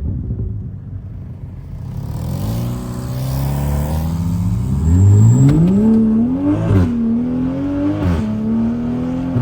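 Toyota Supra's turbocharged inline-six accelerating through its exhaust, with a catless downpipe and single-exit Tomei exhaust, in normal mode with no pops. Engine pitch climbs steadily, then drops briefly twice at the upshifts and settles.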